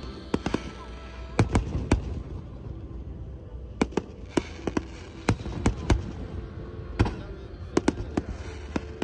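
Aerial firework shells bursting: a string of sharp bangs at irregular intervals, some in quick pairs, over a low steady rumble.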